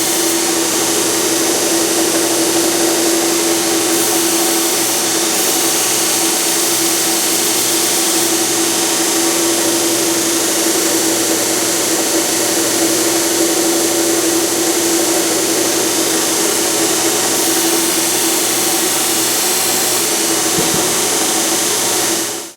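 Burr King belt grinder running a diamond abrasive belt against a carbide stump grinder tooth: a steady hum under a loud, even hissing grind. It stops suddenly at the very end.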